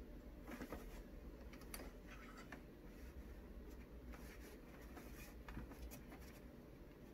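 Faint scratchy rubbing and rustling from a cat moving on a printer's plastic top, a scatter of short strokes over a low steady hum.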